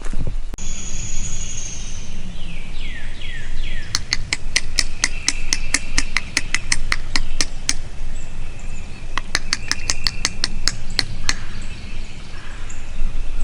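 Wild birds calling in river-bottom woods: a high whistled note, a few quick falling slurred calls, then two long runs of sharp, evenly spaced notes at about four to five a second.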